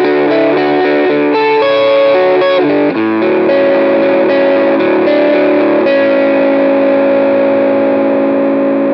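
Electric guitar, a Fender Jazzmaster with Lollar JM pickups, played through a Fairfield Circuitry Accountant compressor into a Boss SD-1W overdrive and a Fender Princeton Reverb amp: an overdriven tone, with a quick run of picked notes and then held chords ringing out at an even loudness. The compressor squashes the dynamics and adds gain to the overdrive.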